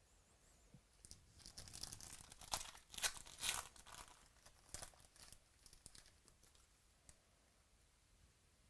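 Trading-card pack wrapper being torn open and crinkled by hand: a run of crackly rustles with sharp crackles, busiest around the middle, then a few light ticks.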